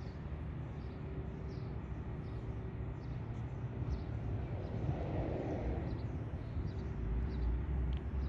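Engine of a Massive 24 HP mini 4WD tractor running steadily, a low hum that gets a little louder near the end.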